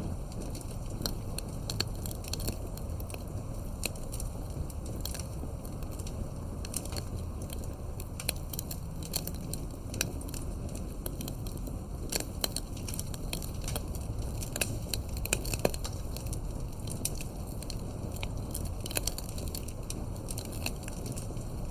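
Wood fire crackling, with dense irregular pops and snaps over a steady low noise, and a few sharper pops about halfway through.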